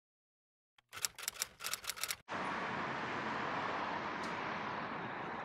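A quick run of about eight camera-shutter clicks, starting a second in. After about two seconds they give way to a steady city background of traffic noise and hiss.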